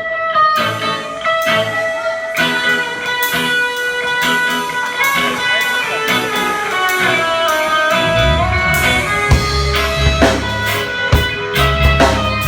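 Guitar playing a picked melodic line during a band sound check; about two-thirds of the way through, a heavy low bass comes in under it, with a few sharp beats.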